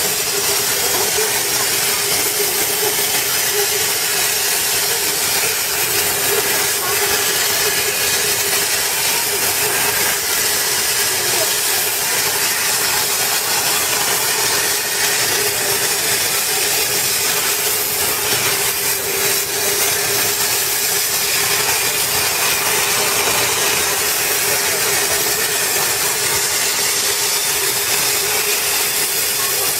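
CNC gantry plasma cutter's torch arc cutting through metal plate: a loud, steady hiss with a constant mid-pitched tone running under it.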